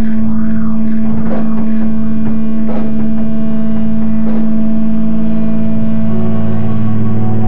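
Loud sustained drone from amplified electric guitars and bass holding one low note, with a higher note joining about six seconds in. Soft washes come about every second and a half over the drone.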